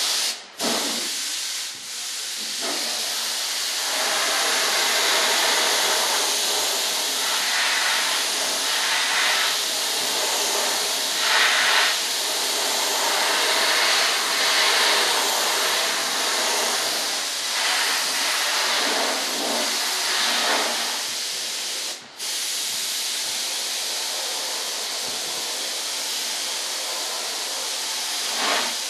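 Compressed-air paint sprayer spraying paint: a steady, loud hiss that stops for a moment a couple of times near the start and once about two-thirds of the way through.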